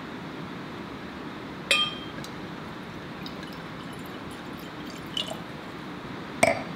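A stemmed wine glass clinks sharply with a short ringing tone as the wine bottle meets it, about two seconds in. Red wine is poured softly into the glass, with a smaller clink a few seconds later. Near the end the glass is set down on a wooden tabletop with the loudest knock.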